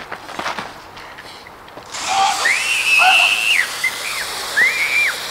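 Scuffling footsteps and knocks of a tackle, then from about two seconds in a high whistle-like squeal over a steady hiss. The squeal rises, holds for about a second and falls away, followed by a few short chirps and a second rise-and-fall near the end.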